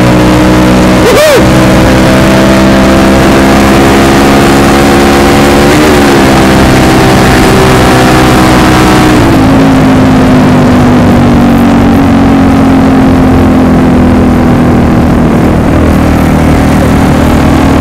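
Yamaha Jupiter MX motorcycle engine running at a steady cruise under wind rush. Its pitch creeps slowly upward, then drops a step about nine seconds in and holds lower.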